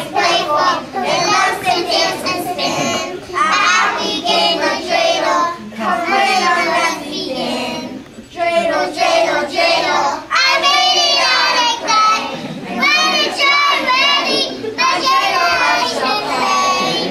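A group of young children singing a song together, in sung phrases with short pauses for breath between them.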